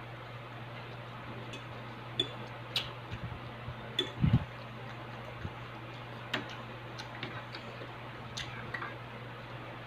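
Close-miked eating sounds: chewing and mouth clicks with scattered ticks of a fork against a plate, the loudest a low thump about four seconds in, over a steady low hum.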